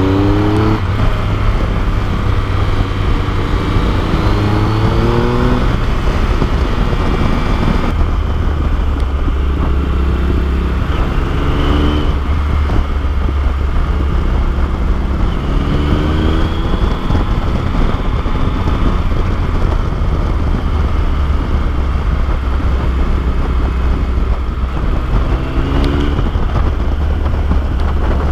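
Motorcycle engine running under way, its pitch rising several times as the rider accelerates out of bends, over a steady rush of wind noise.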